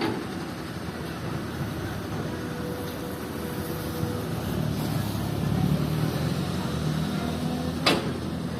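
Komatsu PC200 hydraulic excavator's diesel engine running steadily, getting louder for a couple of seconds past the middle, with a single sharp knock near the end.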